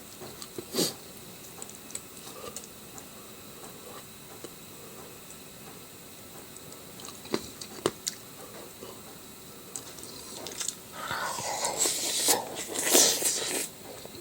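A person eating close to the microphone: a few scattered clicks, then about three seconds of loud, busy chewing and crunching near the end.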